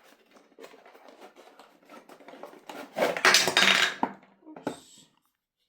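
A gift being handled: light clicks and clattering, then a louder rustling clatter about three seconds in that lasts about a second, and a few last clicks before it goes quiet.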